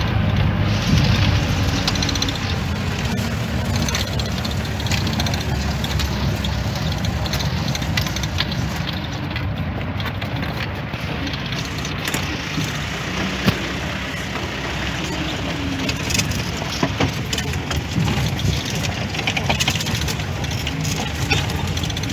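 A 4x4 jeep's engine running as it drives over a rough, stony track, heard from inside the cab. Frequent knocks and rattles from the jolting body and top ride over the steady engine rumble.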